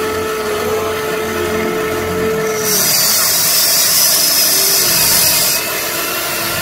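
Huina RC excavator's small electric motors whining as the boom swings in and the bucket digs a scoop of wet mud. A steady whine tone in the first half gives way to a loud high hiss for about three seconds, which then cuts off.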